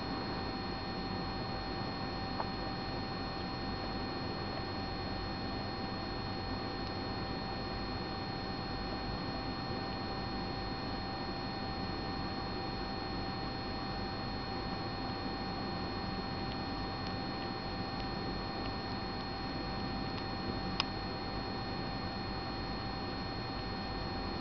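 Steady background hiss with a constant electrical hum made of several fixed tones, broken only by a faint click about two seconds in and another near the end.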